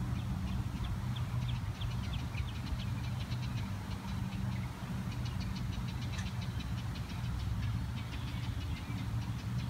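A steady low mechanical hum, like a motor or engine running, with many quick, high chirps over it.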